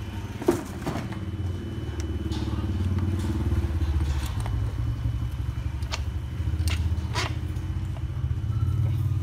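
A motor running steadily with a low, rapidly pulsing rumble, with a few sharp clicks over it.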